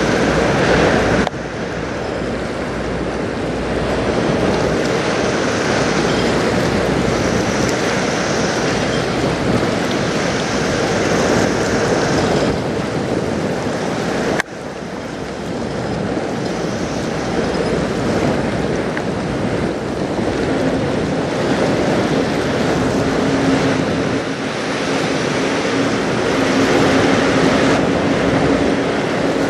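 Steady wind on the microphone and river water lapping while a large bulk carrier passes close, the noise broken by two abrupt cuts. About two-thirds of the way in, the ship's steady low machinery hum comes in and holds.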